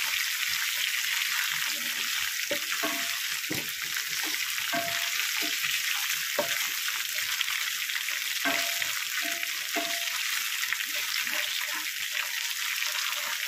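Ginger-garlic paste frying in hot oil in a pan: a steady sizzle, with the wooden spatula scraping and knocking against the pan now and then as it is stirred. The paste is being fried until its raw smell is gone.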